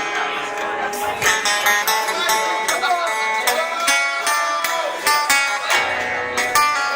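Live music: a plucked string instrument, sounding like an acoustic guitar, plays a run of quick notes.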